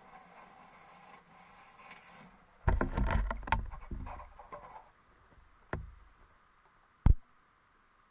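A quick burst of knocks and thumps lasting about two seconds, followed by a single knock and then one sharp knock near the end, over a faint steady hum.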